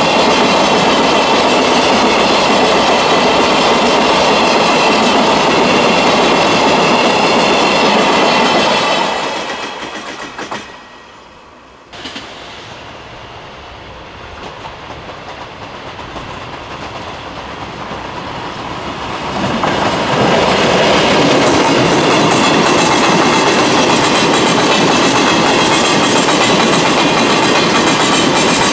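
Hopper wagons of a limestone freight train rolling past close by, their wheels clattering over the rail joints. The clatter fades away about a third of the way in, then an approaching freight train grows louder and its hopper wagons pass close again in the last third.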